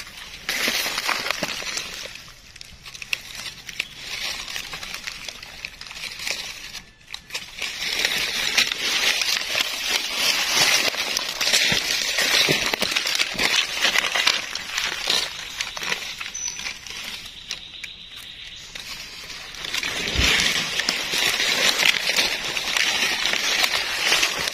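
Dry leaf litter rustling and crackling as someone moves through it, in long spells of dense crackle, with a dull thump about twenty seconds in.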